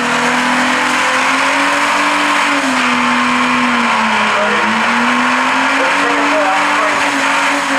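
Holden Commodore doing a burnout: the engine is held at high revs with a steady note that dips briefly about halfway through and climbs back, over the loud hiss and squeal of the spinning rear tyres.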